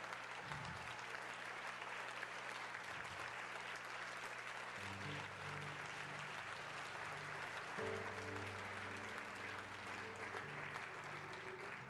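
Congregation applauding steadily. About five seconds in, soft sustained chords from the church musicians come in underneath, changing chord a few seconds later.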